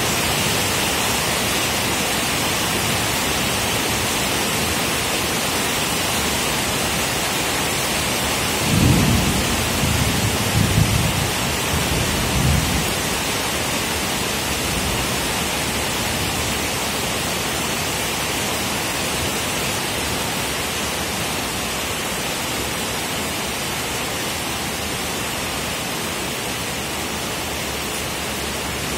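Heavy rain falling steadily, with a roll of thunder rumbling in several swells for about four seconds, starting about nine seconds in.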